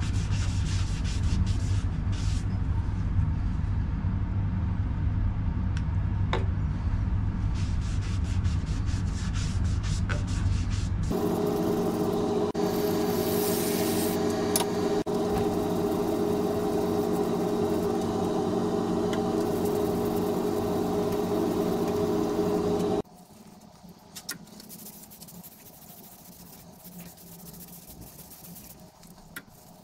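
Wood lathe running with a steady low hum while a cloth rubs toner onto the spinning cedar bowl. About a third of the way in, the sound changes to a louder whine with several steady tones as a hand-held sanding pad is pressed against the turning bowl. Past two-thirds of the way it drops sharply to quiet cloth rubbing with a few light clicks.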